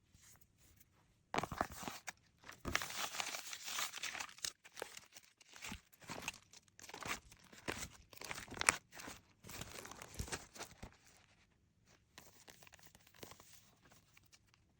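Paper being handled, crinkling and rustling in quick crisp crackles, which grow much fainter after about eleven seconds.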